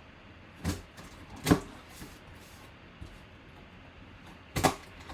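Sealed cardboard mini-helmet box being handled and worked open by hand: a few short cardboard knocks and scrapes, one under a second in, one about a second later, and a double one near the end.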